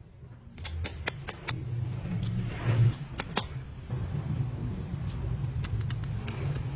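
Sharp clicks and clinks of tools or parts being handled during truck rear axle bearing work: a quick run of them about a second in, two louder ones around the middle and a few more near the end, over a steady low hum.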